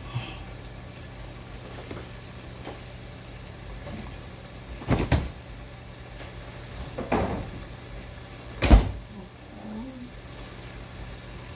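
Three sharp kitchen knocks about two seconds apart, the last the loudest, over a steady low hum.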